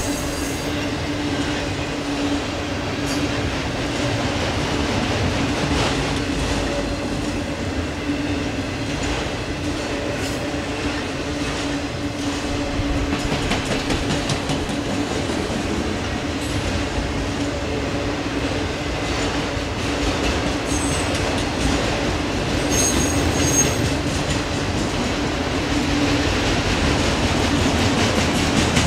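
Autorack freight cars rolling past at steady speed, wheels rumbling and clattering on the rails. Brief high-pitched wheel squeals come right at the start and again late on.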